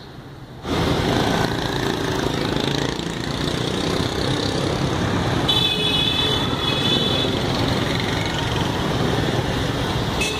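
Busy street traffic of motor scooters and cars running past, starting suddenly after a short quiet moment, with horns tooting from about halfway through and again near the end.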